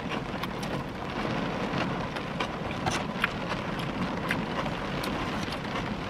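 Steady rain on a car's roof and windows, heard from inside the cabin: an even hiss with many scattered sharp ticks of drops. The speaker calls it so loud.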